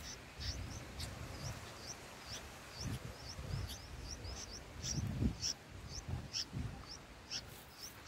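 Bulbul nestlings giving short, high begging chirps, about three a second, as they gape for food. Irregular low rumbles and bumps sit underneath.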